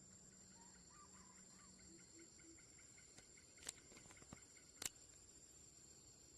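Faint, steady high-pitched insect drone, with a few soft chirps about a second in and three sharp clicks in the second half, the last one the loudest.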